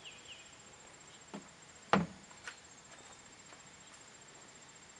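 A hollow plastic knock about two seconds in as a plastic recycling bin lands on a concrete driveway, with a smaller knock just before it and a light click after. Under it, a steady high-pitched insect trill.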